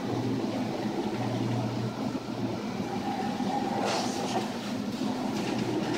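Steady mechanical rumble with a hum, and a brief hiss about four seconds in.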